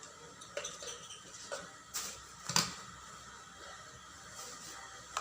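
Scattered short clicks and taps of cupping equipment being handled while suction cups are set on the chest, the two loudest about two and two and a half seconds in.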